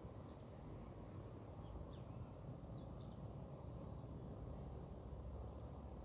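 Steady high-pitched chorus of crickets over a low rumble, with a few faint short chirps.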